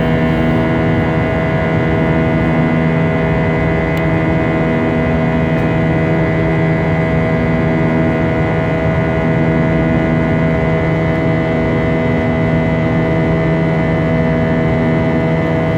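IAE V2500 turbofan engine of an Airbus A320 making buzzsaw noise: a steady, loud drone of many held tones at once. This buzzsaw is the sign of the fan blade tips turning faster than sound at high thrust.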